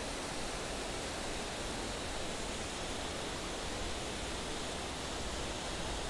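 Waterfall's falling water rushing steadily, a low flow now that the rainy season has ended.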